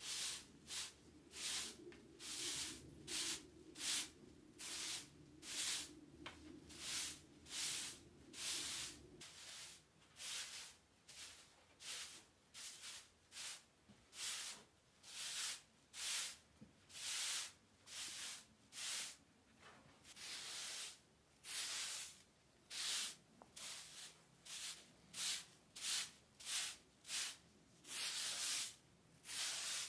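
Straw broom sweeping fine grit across an end-grain wood block floor, working it into the joints: brisk swishing strokes, about two a second. A faint low hum underneath stops about nine seconds in.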